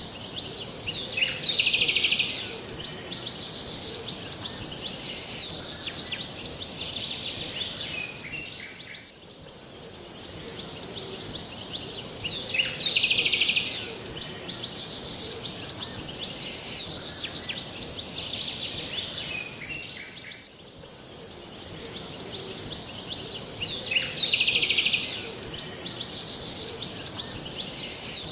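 Looped nature ambience of birds chirping and insects over a steady hiss, the same stretch repeating about every eleven and a half seconds.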